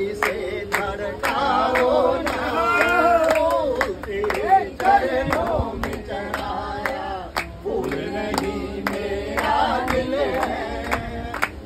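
A group of people singing a Hindi devotional bhajan together, with steady hand clapping keeping time at about two claps a second.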